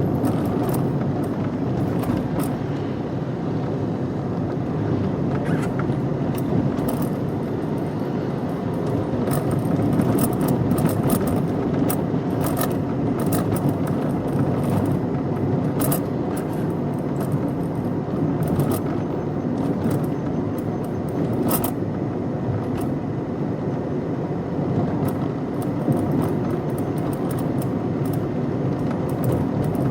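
Car driving along: steady engine and road noise, with small scattered clicks and rattles on top.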